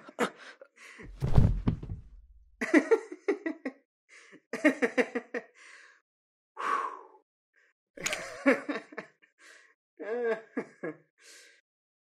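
A man's voice making short wordless sounds and laughs in a string of brief bursts, with a heavy thud about a second in.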